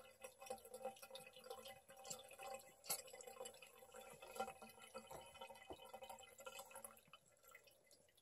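Faint irregular dripping and splashing of a thin stream of tap water running from a bathroom faucet into a ceramic sink basin, with a cat lapping at the stream. One sharper click about three seconds in; the patter dies down near the end.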